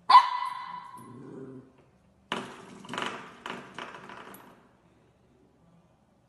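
Coiled-spring door stopper flicked by a puppy's paw: one loud ringing boing that fades over about a second, then four quicker rattling strikes about two seconds later.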